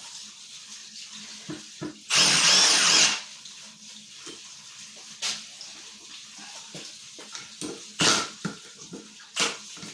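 Cordless impact driver triggered briefly, running free with a whirring rush for about a second, amid clicks and knocks of the tools being handled.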